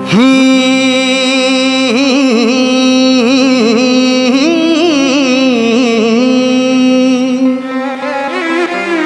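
A male singer holds one long wordless note into a microphone in the style of a devotional Ganesh vandana, bending and wavering it with ornaments over steady instrumental backing. The held note falls away about seven and a half seconds in.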